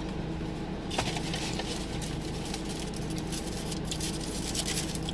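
Crinkling and rustling of fast-food packaging, a dense run of small crackles starting about a second in, over the steady low hum of the car's engine running.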